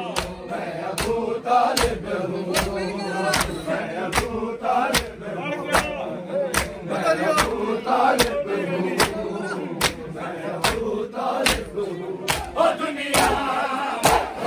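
Crowd of men doing matam, slapping their bare chests with open hands in unison, a sharp slap about every 0.8 seconds. Between the slaps many men chant and call out together.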